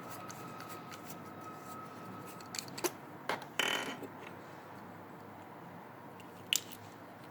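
A few small sharp clicks and a short scraping rub as a hardened fiber-optic connector is handled and fitted onto an adapter port, with one more click near the end.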